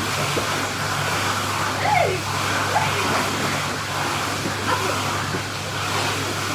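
Steady rushing and splashing of agitated pool water, with a low steady hum under it and a few faint squeaks or voice sounds about two seconds in.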